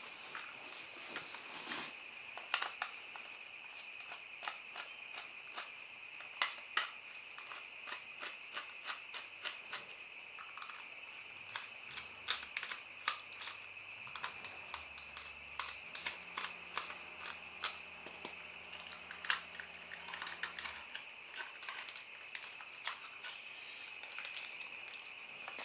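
Many sharp plastic clicks and taps as a small toy car is handled and its body shell unclipped from the chassis, over a steady, slightly wavering high-pitched tone from a house alarm sounding outside.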